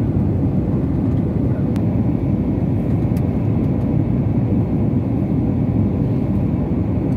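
Jet airliner cabin noise during the approach to landing: the steady low rumble of the turbofan engines and airflow heard from inside the cabin, with a faint steady hum over it.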